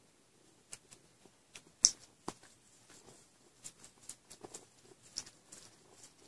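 A cat licking a man's beard: a string of short, irregular rasping clicks from its tongue, several a second, one sharper than the rest about two seconds in.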